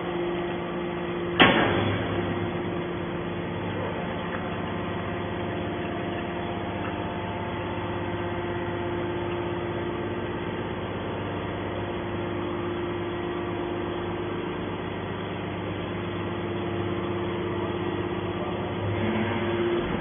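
Hydraulic scrap-metal baler running: its pump and motor give a steady hum with a constant tone while the compressed bale is pushed out of the press chamber. One loud metallic bang about a second and a half in.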